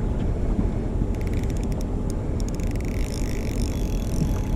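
Shimano Stratic 1000 spinning reel's drag clicking, then buzzing steadily from about halfway in as a big ray pulls 10-pound braid off against the light drag, over a steady low rumble.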